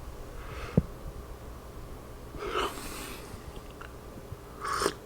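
A man's short, breathy exhalations and sniffs, three of them about two seconds apart, as he catches his breath after a sneezing or coughing fit.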